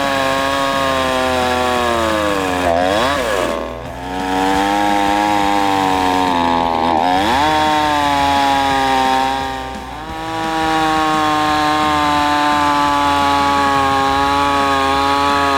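A small engine running at high speed with a steady whine; its pitch sags and climbs back twice, about three and seven seconds in.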